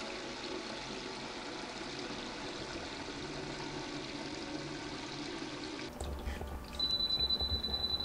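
Water running steadily into a plastic jug and being poured from it into the filling bowl of a Midea WAHIN mini dishwasher. Near the end the dishwasher sounds a steady high beep, the signal that its 5-litre water tank is full.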